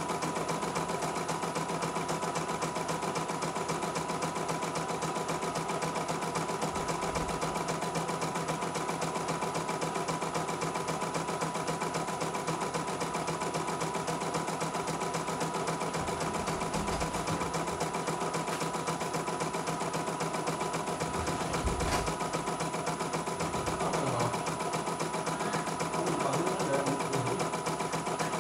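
CNY E900 portable embroidery machine stitching steadily, its needle running at a fast, even rate as the embroidery unit moves the hoop through the lettering.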